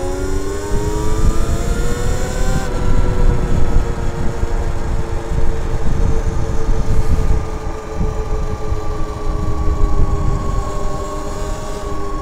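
Electric motor whine of an electric two-wheeler being ridden. Its pitch rises for the first few seconds as it speeds up, then holds nearly steady at speed over a loud rumble of wind on the microphone.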